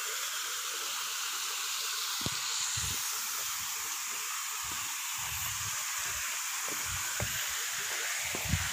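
A steady hiss with scattered soft, irregular thumps of footsteps on a concrete path.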